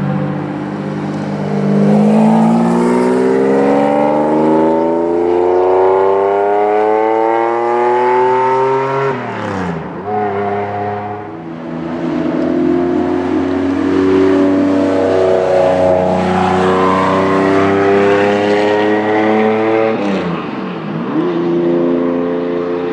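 Lamborghini Diablo VT's V12 with a modified exhaust, loud and accelerating hard. The engine note climbs steadily for several seconds, then drops sharply, and this happens twice.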